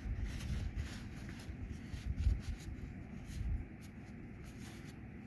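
Faint rubbing and handling noises, with scattered light clicks, as excess thread sealant is wiped off a freshly tightened quick-connect fitting on a pressure washer filter.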